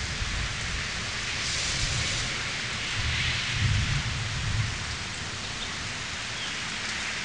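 Steady rainfall, an even hiss, with a low irregular rumble swelling about three to five seconds in.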